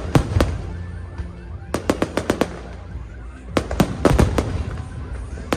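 Aerial fireworks bursting: a couple of sharp bangs at the start, then quick clusters of bangs about two seconds in and again about four seconds in.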